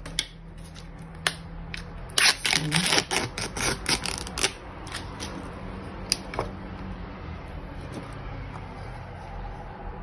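Spatula scraping and tapping against a plastic tub as its soft contents are emptied into a bowl: a quick run of clicks and scrapes for a couple of seconds, then a few single taps.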